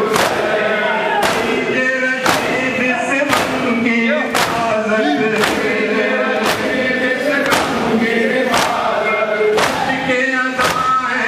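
Large group of men chanting a mourning lament in unison while beating their chests in time (matam): a loud collective slap about once a second over the singing.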